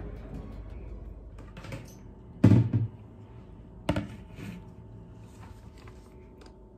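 Kitchen handling sounds: a cupboard door shutting with a dull thump a couple of seconds in, then a single sharp knock as a plastic basin is set down on the counter.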